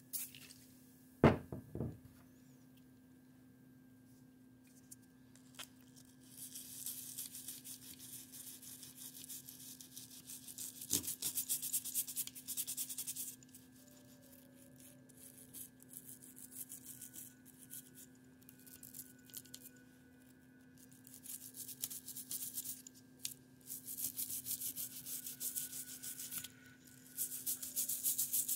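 Rubbing and scrubbing over a 1941 Argus AA camera while it is cleaned, in spells of several seconds with pauses between. A sharp click sounds about a second in and another around eleven seconds in.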